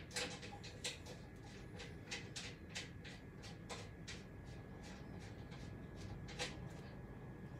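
Irregular small clicks and ticks, about three a second, as a knob is turned by hand and threaded into a quilting frame's side rail; one louder click comes about six and a half seconds in.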